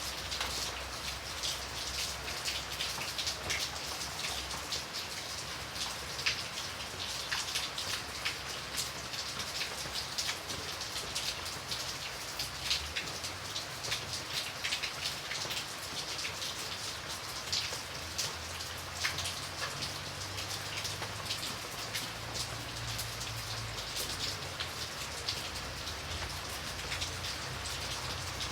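Steady rain falling, with many individual drops ticking sharply on a hard surface close by over an even hiss of rainfall and a faint low rumble underneath.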